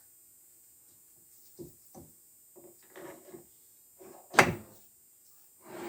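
Metal lathe tooling being handled with the machine stopped, likely the drill chuck being swapped in. It makes a series of scattered knocks and clunks, with one sharp, loud metallic clank a little past four seconds in.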